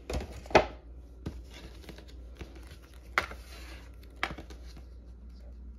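Small leather card holders being handled and set down on a tabletop: several sharp taps and knocks, the loudest about half a second in, with brief rustling in between.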